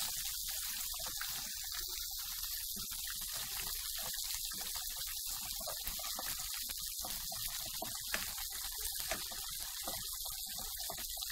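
Soft, irregular rustling and scraping of shredded cabbage being stirred with a spoon in a pot, over a steady hiss. The pot is not yet hot enough to sizzle.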